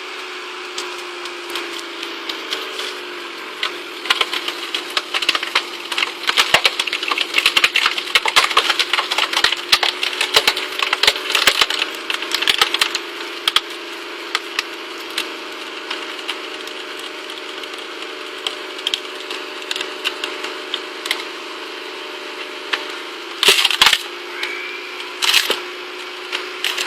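Stickler screw-cone wood splitter boring into a dry pine log: the drive hums steadily, its pitch sagging a little as the cone bites, while the wood cracks and splinters in a dense run of sharp crackles through the first half. Two louder knocks come near the end.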